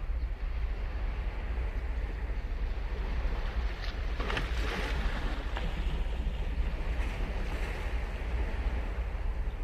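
Ocean waves on a beach: surf washes in and swells about four seconds in, then fades over a couple of seconds, over a steady low wind rumble on the microphone.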